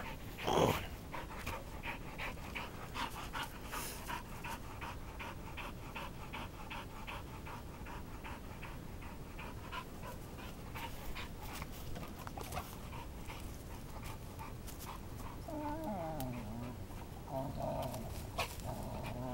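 Dog panting rapidly, about four breaths a second, with a couple of short wavering whines near the end.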